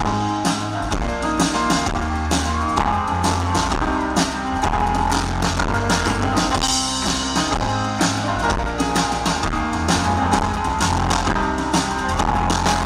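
Live folk-rock band playing an instrumental break: a drum kit hit hard with sticks, with cymbals crashing, over strummed guitar and other instruments.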